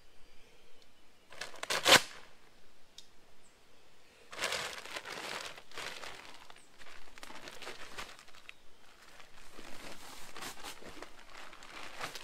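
A rice bran feed sack being ripped open and handled: one sharp, loud rip about two seconds in, then steady crinkling and rustling of the sack as it is worked open and lifted.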